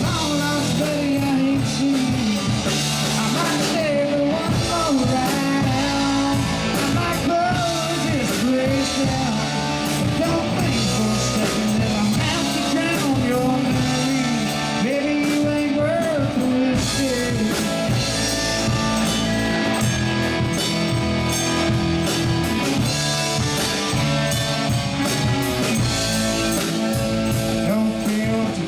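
Live country-rock band playing a song at steady loudness.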